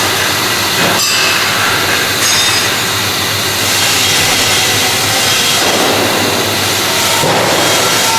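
Bore welding machine at work: a loud, steady crackling hiss over a low hum.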